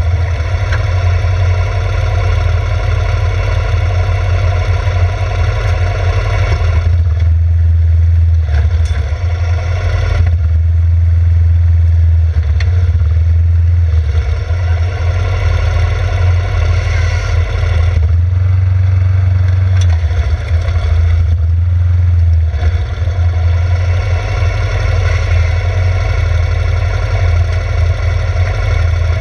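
Yamaha Grizzly 600 ATV's single-cylinder engine running at low speed with a steady low hum, the note easing off and picking up again a few times.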